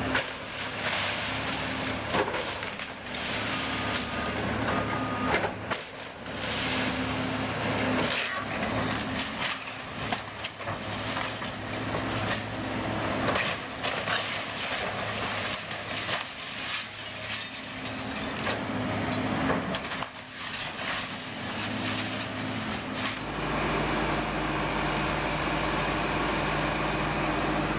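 Demolition excavator's diesel engine running while its bucket tears into a brick building, with repeated crashes and cracking of falling brick and splintering timber. From about three-quarters of the way through, a steadier engine close by takes over and the crashes mostly stop.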